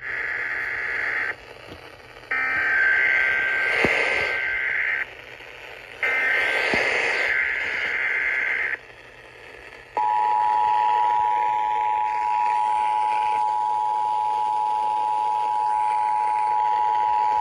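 Emergency Alert System SAME header: three bursts of warbling digital data tones, then the steady two-tone EAS attention signal held for about eight seconds, which leads into a severe thunderstorm watch message.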